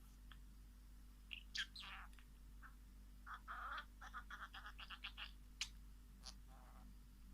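Faint calls of wild birds: a few short calls, one sliding down in pitch, then a quick run of rapid chirps around the middle.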